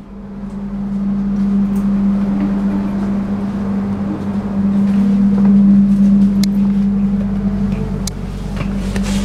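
Steady low hum inside a passenger sleeper-train carriage, a single even tone from the coach's onboard machinery. A couple of light clicks come about six and eight seconds in.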